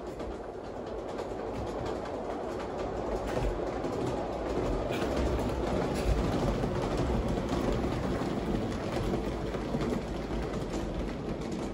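LGB G-scale model electric locomotive and passenger cars rolling along the track: a steady rumble of wheels on rail with faint clicks. It grows louder as the train comes closest, a little past halfway, then eases off slightly.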